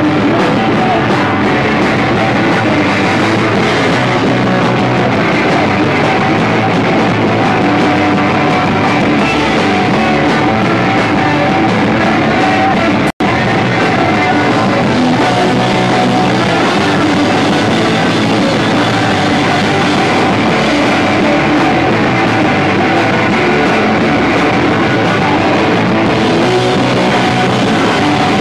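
Punk rock band playing live: electric guitars, bass and drums with a singer, loud and rough-sounding. The sound cuts out for a split second about halfway through.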